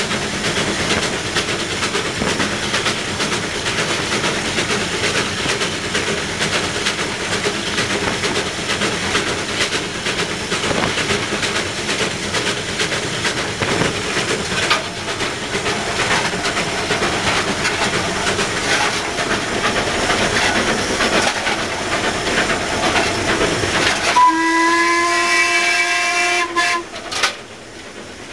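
Steam locomotive running, heard from the footplate: a steady rush of steam, exhaust and wheels on the rails. About four seconds before the end, the locomotive's steam whistle sounds a chord of several notes for about three seconds, then cuts off.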